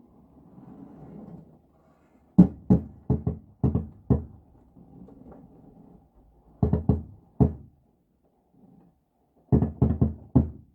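Tree branches blown by the wind knocking against a frosted skylight, in three bursts of quick knocks, with faint scraping in between.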